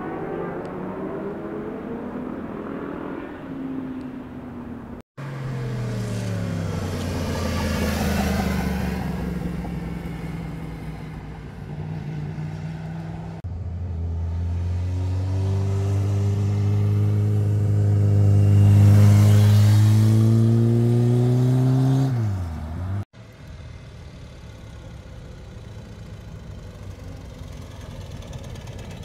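Motorcycle engines on a twisting road, in clips joined by two abrupt cuts: revs rising and falling through gear changes, and a loud engine whose pitch drops steeply as the bike passes close by shortly before the second cut. After that cut, a quieter engine of a motorcycle with sidecar approaches.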